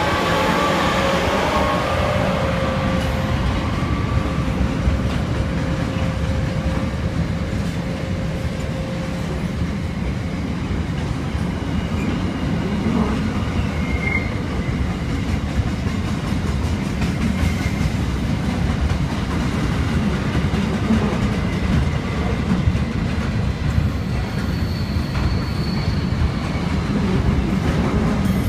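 Diesel freight locomotive passing close by, its engine tones fading over the first few seconds, followed by a long train of intermodal container wagons rolling past with a steady rumble and clatter of wheels on rail. Brief faint wheel squeals come about halfway through and again near the end.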